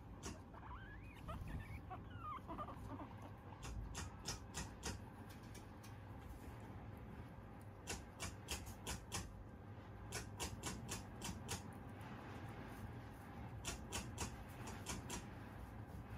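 Guinea pig giving a few soft, wavering squeaks in the first few seconds, followed by several short runs of sharp clicks, about four or five a second.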